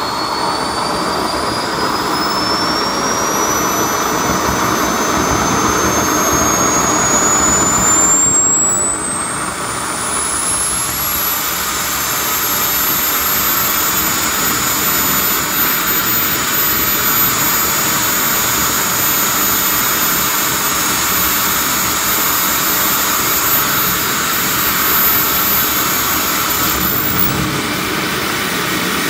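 KingTech K45 model jet turbine running on a test fire. Its whine climbs steadily for about eight seconds as it spools up, dips briefly, then holds steady over the rush of the exhaust. Near the end it starts to climb again as the throttle is raised.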